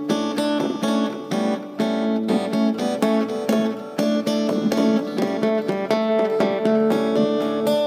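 Acoustic guitar played through a delay effect pedal: a quick run of plucked notes, several a second, whose tones ring on and overlap.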